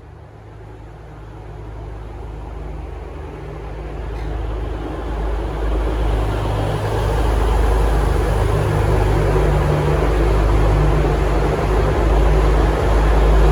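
V/Line VLocity diesel railcar set pulling away under power, its diesel engines drumming with a steady low drone. The sound grows steadily louder over the first six or seven seconds as the train nears, then holds at full volume.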